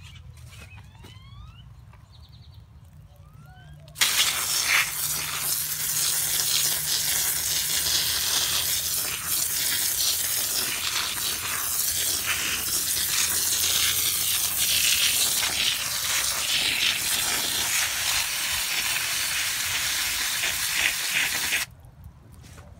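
Garden hose spray nozzle spraying water onto soil and leaves, a steady hiss and splash that starts suddenly about four seconds in and cuts off abruptly just before the end.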